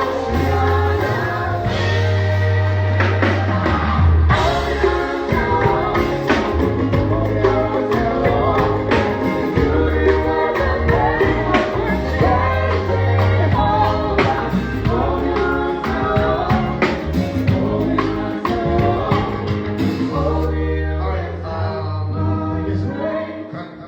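Gospel band playing a song with singing over drums and bass, which dies down near the end.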